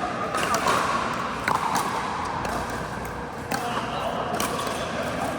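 Pickleball paddles popping against a hard plastic ball and the ball bouncing on an indoor court floor: a string of sharp, irregularly spaced hits.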